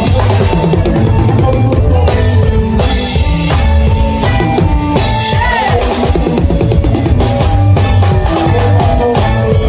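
A band playing without vocals, the drum kit to the fore with kick drum, snare and rimshots over a steady bass line and other pitched instruments.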